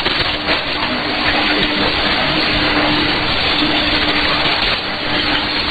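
Shortwave AM reception through a software-defined radio: a dense hiss of static and atmospheric noise, with a low steady tone that cuts out and returns several times, and no clear programme audio.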